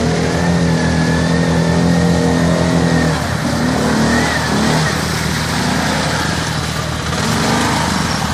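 Arctic Cat ATV engine running under load as it wades through a muddy pond, steady for the first few seconds, then the engine note rising and falling as the throttle is worked, revving up again near the end as it pulls up close.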